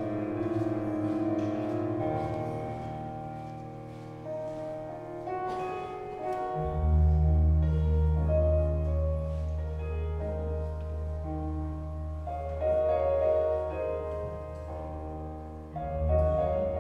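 Slow instrumental music on piano or keyboard, with held chords changing every second or two and a deep sustained bass coming in about a third of the way through.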